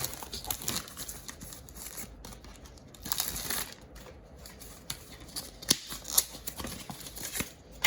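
Scissors snipping open a plastic blind-bag wrapper, with the packaging crinkling as it is handled: irregular snips and rustles, with a few sharp clicks near the end.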